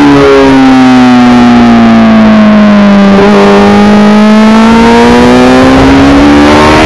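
Yamaha R6 inline-four engine heard from the bike itself, with wind rush. The revs fall as the bike slows into a corner, bottom out about three seconds in, then climb steadily as the throttle opens on the exit.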